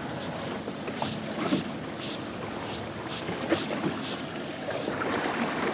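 Steady wind and sea noise aboard a fishing boat, with a few light knocks and clicks scattered through it.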